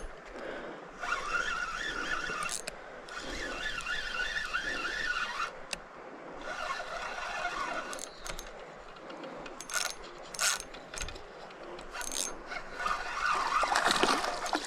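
Fishing reel being cranked: a mechanical whir from the reel's gears, running in several stretches of one to two seconds with short pauses between turns of the handle.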